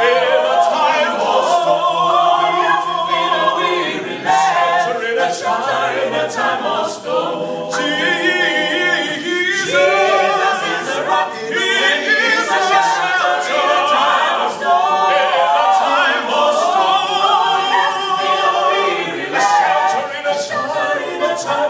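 Five-voice mixed a cappella gospel group, men and women, singing in close harmony with no instruments.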